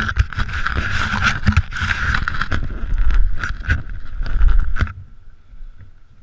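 Skis scraping and chattering over packed, tracked snow, with wind rumbling on the microphone; the scraping dies down about five seconds in as the skier slows.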